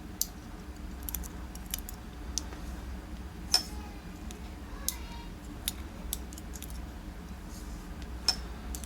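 Light metallic clicks and taps of small parts being handled: tweezers working the pins out of a disassembled dimple lock cylinder. The ticks come irregularly, with the sharpest about three and a half seconds in and again near the end.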